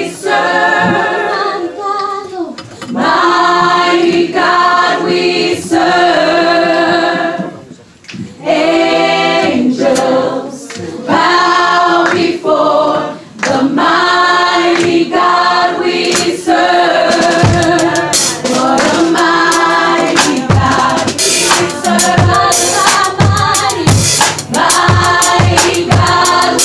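Live church worship music: a group of voices sings long phrases with little backing. About two-thirds of the way through, a drum kit comes in with a steady beat under the singing.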